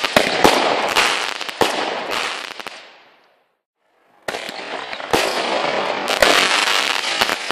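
Nico 'Mephistos Fire' consumer fireworks battery firing: sharp bangs of launching and bursting shots over a dense rush of noise. This dies away about three seconds in, and after a second of silence another run of shots starts.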